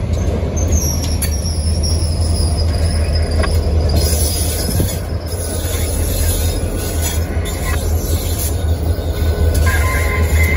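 Kansas City Southern freight train rolling past at close range: covered hopper cars clatter by, then the diesel locomotives pass with a steady low engine drone. A thin, high wheel squeal slowly falls in pitch over the first few seconds.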